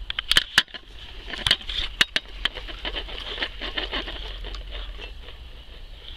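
Sharp clicks and knocks of a carp rod and reel being picked up and handled as a fish is struck, several in the first two seconds, over a steady high-pitched hiss.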